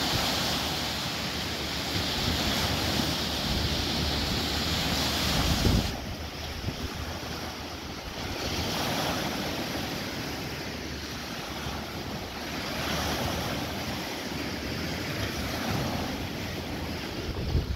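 Lake Ontario waves about two feet high breaking and washing up a sandy shore, the surf swelling and easing every few seconds. Wind rumbles on the microphone.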